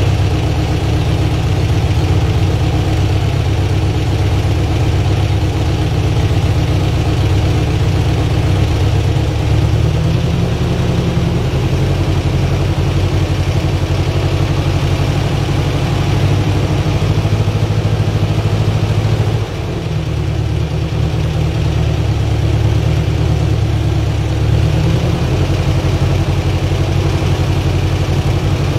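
Air-cooled VW flat-four engine idling steadily through an equal-length stainless Superflow exhaust for the split-window Bus. The level dips slightly for a moment about two-thirds of the way through, then settles back.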